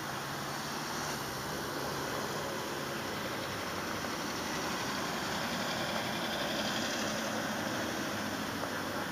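Vehicle engines running steadily on the street, with a low engine hum, and a car drawing close near the end.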